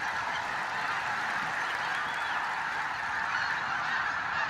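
A large flock of geese honking together in a dense, steady din of overlapping calls.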